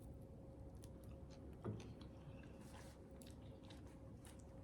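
Faint chewing of food, with small scattered mouth clicks and one slightly louder one about a second and a half in.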